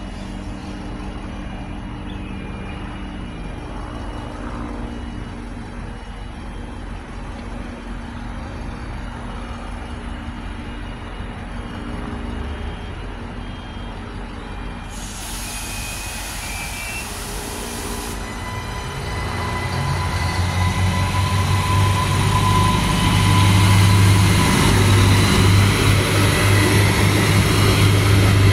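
A 3000-class diesel railcar set running at a station platform, with a short burst of hiss about halfway through. In the last third its engines and drive grow louder and throb as the train pulls away.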